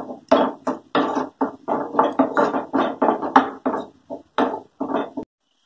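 Wooden spatula scraping and stirring thick onion-tomato masala in a nonstick pan, in quick repeated strokes at about four a second. It cuts off suddenly about five seconds in.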